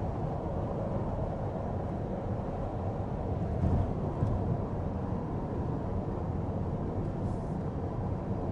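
Steady road and tyre noise with a low rumble inside the cabin of a Mitsubishi Outlander PHEV cruising on an expressway.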